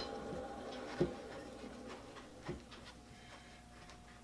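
Steel jaw of a Skinner Junior three-jaw lathe chuck clicking and knocking lightly against the chuck body as it is tried in its slot, a jaw that does not slide in freely. A sharp click at the start, a softer knock about a second in and a fainter one later, over a faint steady hum.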